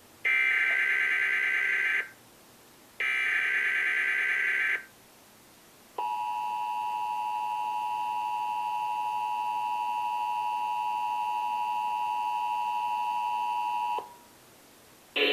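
Emergency Alert System broadcast tones. First come two SAME header data bursts encoding the Child Abduction Emergency alert, each a shrill warbling screech of about two seconds with a second's gap between them. A second later the EAS two-tone attention signal starts, a steady dissonant tone held for about eight seconds.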